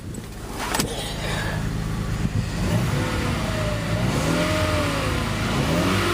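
Cold car engine idling steadily, with a whine that rises and falls in pitch over it from a few seconds in.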